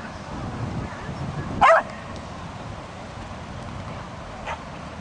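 A dog barks once, loudly and briefly, about one and a half seconds in, then gives a single faint bark near the end.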